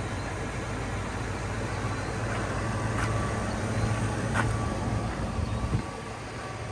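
A Ford F-250 pickup's engine idling with a steady low hum, which drops away about six seconds in.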